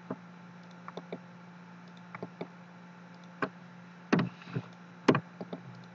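Scattered sharp clicks and taps of a computer mouse and keyboard, about a dozen, with the loudest a little after four and five seconds in, over a steady low electrical hum.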